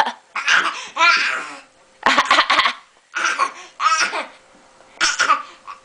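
A baby fake-coughing on request: several short, forced, breathy coughing bursts with pauses between them, along with laughter.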